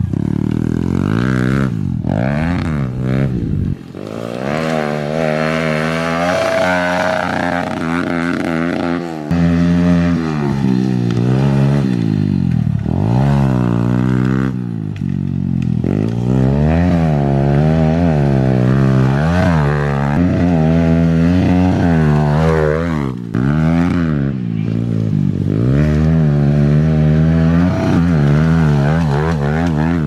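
Kawasaki pit bike's engine revving up and down again and again as it is ridden around a dirt track, with short lifts off the throttle, its rear wheel running on a bare rim.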